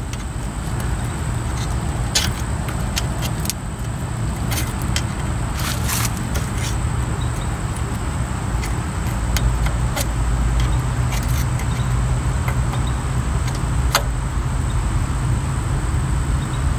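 Screwdriver clicking and scraping against the metal grease cap on a 1963 Mercury Monterey's front wheel hub as the cap is pried off: scattered sharp clicks, most of them in the first half, over a steady low rumble.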